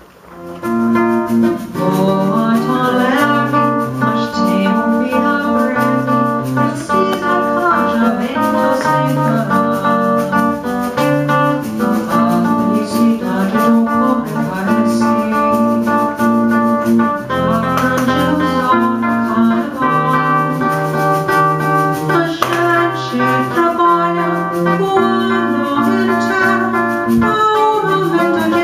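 Live music starting about half a second in: acoustic guitar with a singing voice.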